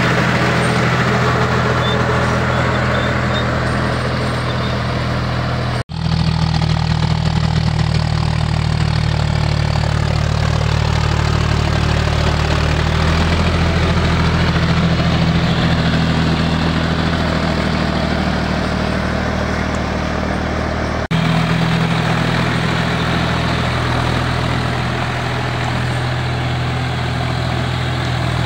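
John Deere tractor's diesel engine running steadily under load while pulling a rotary tiller through wet soil, the tiller adding a dense churning noise over the engine's low drone. The sound drops out for an instant about six seconds in, and the engine tone shifts slightly about twenty-one seconds in.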